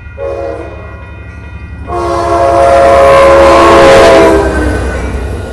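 Nathan P5 air horn on an Amtrak F59PHI diesel locomotive sounding for a grade crossing: a first blast of about two seconds, then a longer, louder blast as the locomotive comes alongside. Under it is the rumble of the locomotive and cars rolling past.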